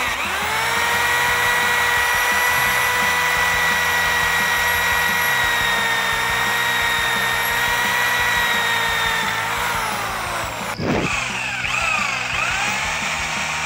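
Electric drill boring holes through a flat steel bracket, running as a steady high whine. Its pitch drops as it winds down about nine and a half seconds in. After a break the drill runs again with its pitch wavering up and down.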